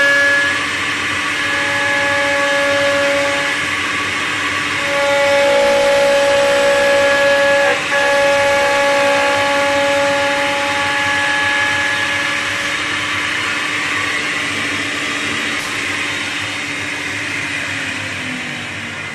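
CNC wood shaping machine's spindle and cutter running and machining a wooden knife-handle blank: a steady whine with shifting overtones over the rasp of cutting, easing a little near the end.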